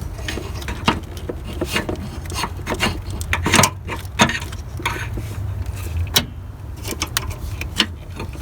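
Irregular metallic clicks and knocks of a replacement car starter and tools being handled and worked into place, over a steady low rumble.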